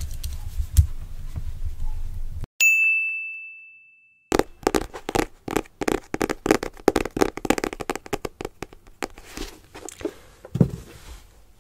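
A single bright ding rings out and fades over about a second. After a brief silence come rapid, irregular tapping and scratching of fingers on a small cardboard box held close to a microphone, ASMR-style.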